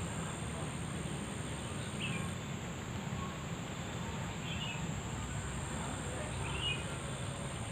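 Insects trilling in a steady high pitch, with a few short chirps every couple of seconds, over a low outdoor rumble.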